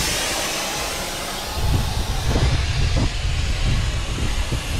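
Air hissing steadily out of a 4WD's tyre valve as the tyre is let down for driving on sand. Wind buffets the microphone with a low rumble from about two seconds in.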